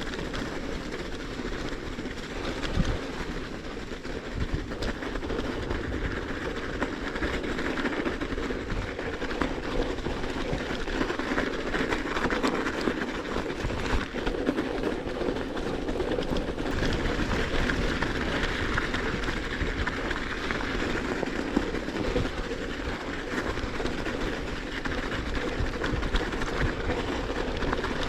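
Bicycle tyres rolling over crusted snow: a steady crunching rumble that carries on without a break.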